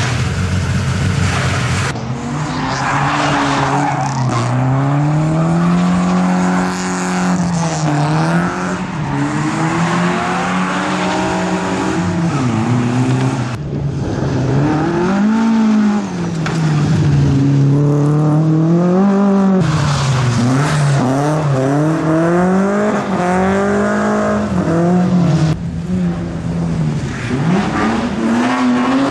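A competition car's engine revving up and dropping back again and again as it is driven hard through a slalom course, with tyre squeal in the turns.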